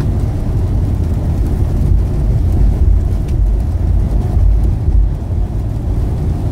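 Steady low rumble of a truck's engine and its tyres on a wet highway, heard from inside the cab.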